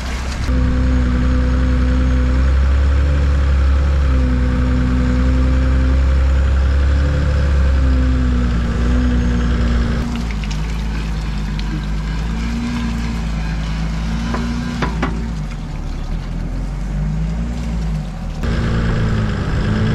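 Hägglunds Bv206 tracked carrier driving through mud and water, its engine running steadily with a note that wavers up and down. The sound changes abruptly about ten and eighteen seconds in.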